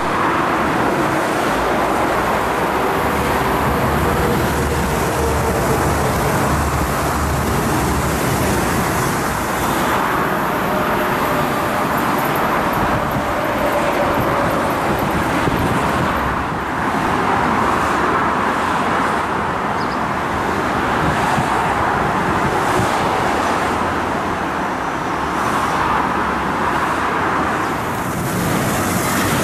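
Steady rush of motorway traffic, cars and lorries passing beneath, with an ICE-T tilting train going by on the railway alongside, so quiet that it hardly stands out above the road noise.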